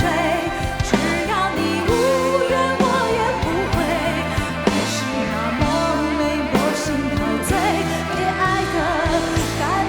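Live pop-rock band music with a sliding sung vocal line over drums and bass.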